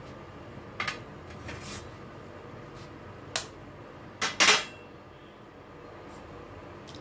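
An egg knocked against the rim of a steel kadhai to crack it: a few light clicks, then a louder quick double knock a little over four seconds in.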